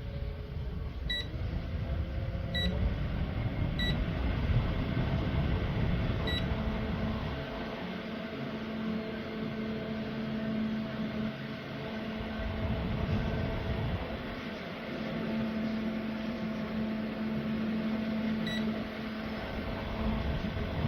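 Battery-powered camping fan running with a steady motor hum and rushing air. Short high electronic beeps from its controls come four times in the first several seconds and once more near the end.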